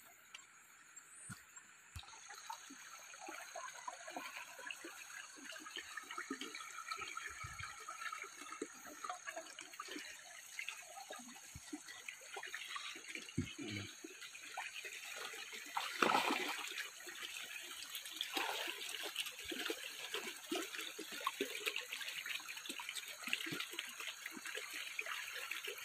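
Shallow river water trickling and splashing, with irregular rustling and steps through grass and water, and one louder burst about sixteen seconds in.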